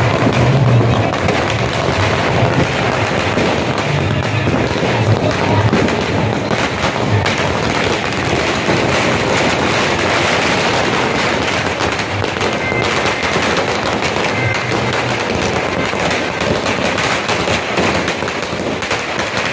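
Firecrackers bursting in a rapid, unbroken crackle of bangs.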